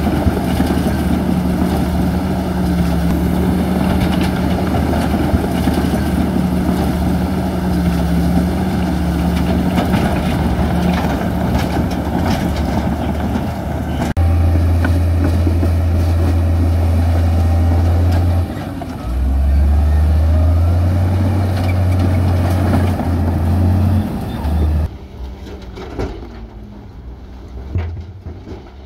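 Heavy construction machine's diesel engine running steadily with a deep drone, its low pitch shifting as the load changes. About 25 seconds in it drops away abruptly, leaving a quieter background with a few scattered knocks.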